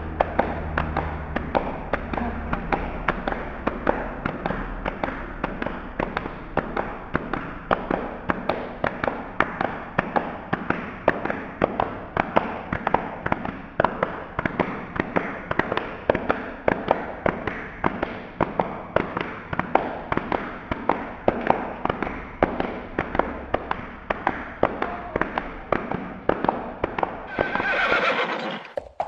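Horse hooves galloping, a fast, steady rhythm of hoof strikes that goes on and on; near the end a horse neighs.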